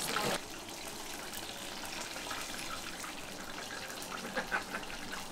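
Whole guinea pig deep-frying in a pan of hot oil: a steady sizzle, louder for a moment at the start, with a couple of light knocks about four and a half seconds in.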